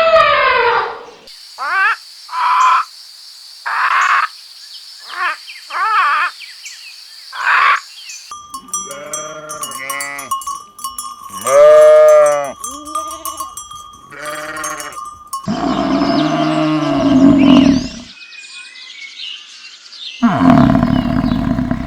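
A series of separate recordings of farm animals calling, cut one after another with abrupt changes in background. Most of the calls are repeated pitched bleats, some short and some long and arching.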